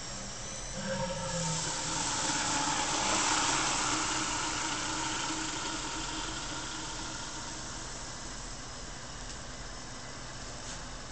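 Liquid nitrogen boiling off in a graphics card's LN2 pot just after a pour. The hiss swells about a second in and dies away over several seconds, over a steady machine hum.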